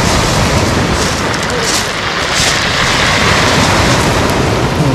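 Small sea waves breaking on a pebble beach and washing over the stones, a steady rushing hiss with a few louder washes, over low wind rumble on the microphone.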